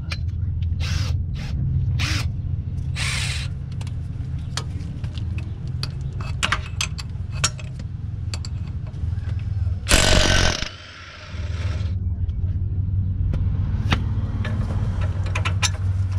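Cordless electric ratchet running in short bursts on a bolt, with a louder, longer burst about ten seconds in, over a steady low hum and scattered clicks.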